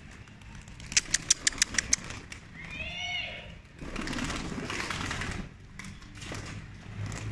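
Pigeons flapping their wings as they come out into the open. About a second in there is a quick run of about eight sharp wing claps, then a short bird call, then a longer spell of wing flutter.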